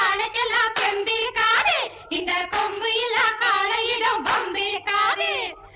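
Background music with a high-pitched singing voice.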